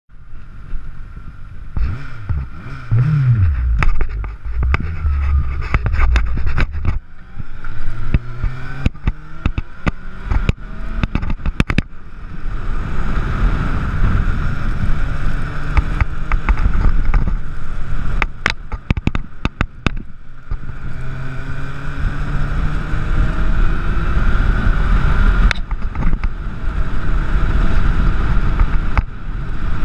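Honda CBR600F inline-four motorcycle engine under way, its pitch climbing again and again as it accelerates through the gears, with brief drops at the gear changes. Many short clicks and crackles run over the engine sound.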